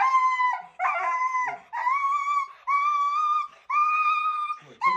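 Siberian husky giving a run of about five high, drawn-out howling cries, each under a second, with short breaks between them: a dramatic protest at being restrained by the muzzle.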